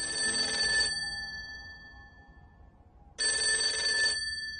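An old-style telephone bell ringing twice. Each ring lasts about a second and trails off; the second starts about three seconds in.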